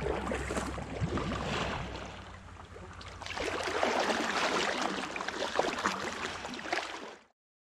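Water splashing and sloshing around a stand-up paddleboard as it is paddled among surfacing beluga whales, with a low rumble of wind on the microphone. The splashing swells up twice, louder in the second half, and cuts off abruptly near the end.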